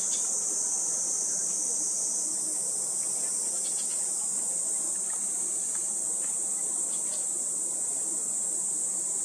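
Steady high-pitched insect buzzing, the loudest sound, with a few faint short calls of a tiger shrike about four and seven seconds in.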